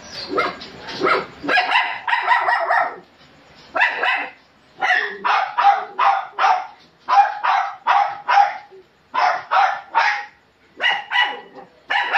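Small dog barking repeatedly: sharp, high barks in quick runs of several at a time, with short pauses between the runs.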